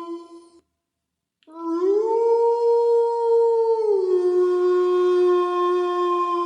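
Canine howling: one howl trails off right at the start. After a short silence a new long howl begins about a second and a half in, rises in pitch and holds. About four seconds in it drops to a lower pitch and holds steady there.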